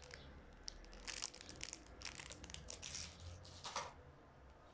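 Clear plastic wrapper around a compact mirror hairbrush crinkling in the hands in faint, irregular rustles that die away near the end.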